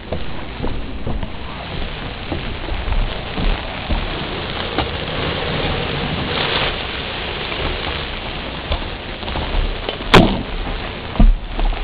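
Garden hose spraying water onto the deck around a burning turkey fryer: a steady, rain-like hiss of water hitting the surface, with small ticks and a sharp knock about ten seconds in.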